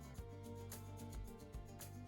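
Quiet background music: held notes over a steady beat of light strikes about twice a second.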